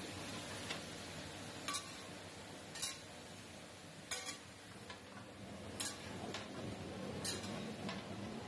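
Metal ladle clinking against a steel karahi while green beans and carrots are stir-fried: five sharp clinks about every second or so, over a steady hiss.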